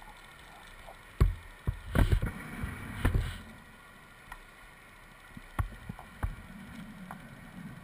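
Muffled knocks and bumps against an underwater camera housing during a scuba dive. About two to three seconds in comes a louder rushing burst, like a diver's exhaled regulator bubbles.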